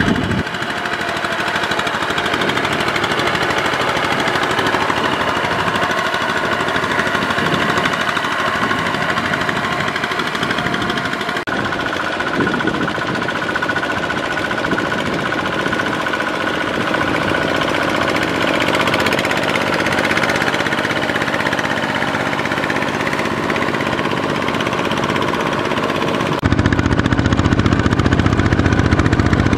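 Two-wheel walking tractor's single-cylinder diesel engine running steadily under load as the cage-wheeled tiller pulls through flooded paddy mud. The engine sound shifts abruptly twice and is louder and deeper in the last few seconds, when two tillers are working.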